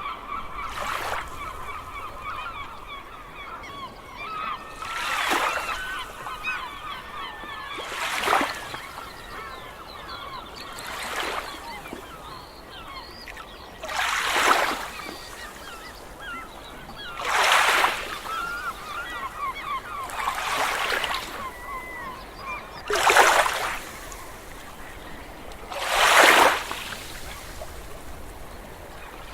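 A large flock of gulls calling continuously in a dense chorus of squawks, with waves breaking and washing in about every three seconds.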